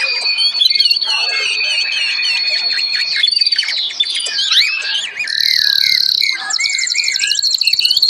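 Several caged songbirds singing and calling at once: overlapping high whistles, chirps and sweeping notes, with a fast run of rapidly repeated notes near the end.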